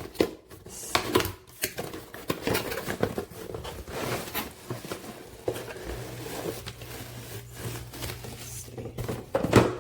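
Cardboard product box being opened and its contents handled: irregular rustling of paper and packaging with short clicks and knocks, loudest near the end.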